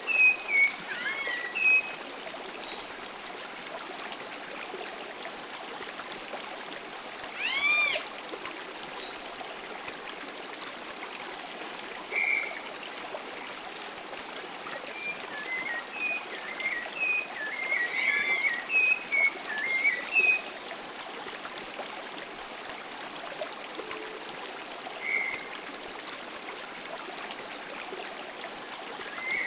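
Atlantic Forest birds calling in a field recording: scattered short chirps and several whistled notes that sweep up and down, over a steady rushing background.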